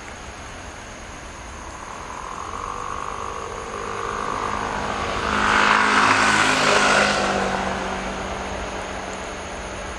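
Emirates Boeing 777's twin jet engines at takeoff thrust as it speeds down the runway past the listener. The engine noise swells over several seconds to a buzzing peak about six to seven seconds in, then fades as the jet moves away.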